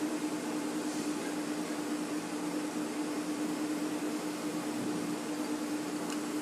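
Steady machine hum with one constant low tone, with a faint click near the end.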